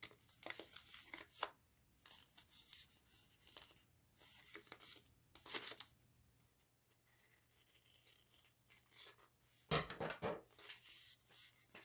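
Scissors cutting through paper, trimming the excess white border off a printed wrapper: runs of short snips separated by brief pauses.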